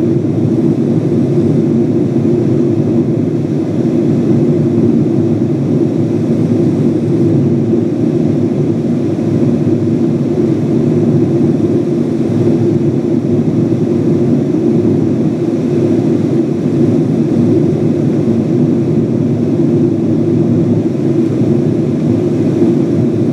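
Steady, loud cabin noise inside a Boeing 777-200 airliner climbing at speed: engine and airflow noise heard at a window seat, unchanging throughout.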